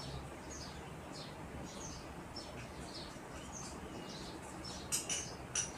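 Metal spoon stirring flour-and-water paste in a small glass bowl: a quick run of short, high scrapes against the glass, a few per second, with two sharper clinks near the end.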